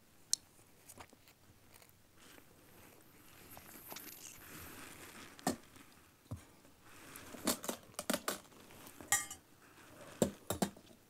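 Scattered small clicks and taps of dishes and cutlery, with crinkling and crunching as food is handled at a table, and a brief rattle about nine seconds in.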